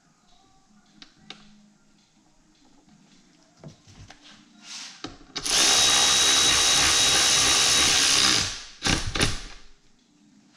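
Power drill/driver running a seat-track bolt in for about three seconds, then two short trigger blips to snug it down. Before that, faint clicks of the parts being handled.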